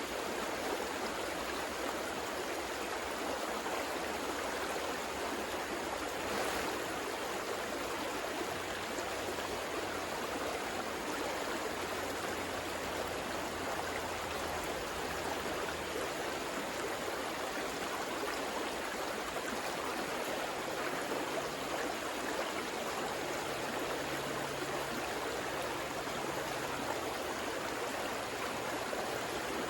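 River water flowing over rocks: a steady, even rush with no breaks.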